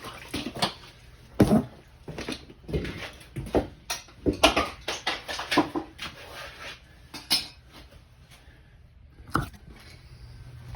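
Irregular metal clanks and knocks from a removed sewage pump and its fittings being handled. The knocks come thick for about seven seconds, then thin out, with one last knock near the end.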